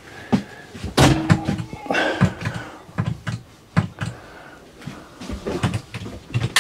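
A string of knocks and clicks inside a motorhome, with a brief hum about a second in: doors and cupboard flaps being opened and handled.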